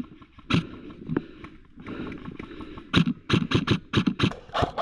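Airsoft rifle firing: a single shot about half a second in, then a quick string of semi-auto shots from about three seconds in, roughly five a second.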